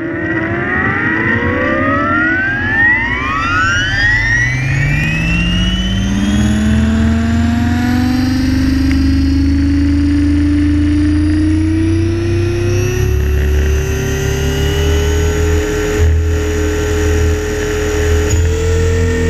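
Electric RC helicopter (Align T-Rex 550) spooling up from rest, heard from on board. The motor and gear whine rises steeply in pitch over the first several seconds, then levels off into a steady whine over the rotor's low drone, stepping up a little near the end as it lifts off.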